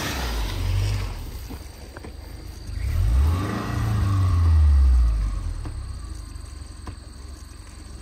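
Subaru Outback engine revving under load as the car tries to pull itself out of soft ground. The revs climb about three seconds in, are highest around the middle, then fall back.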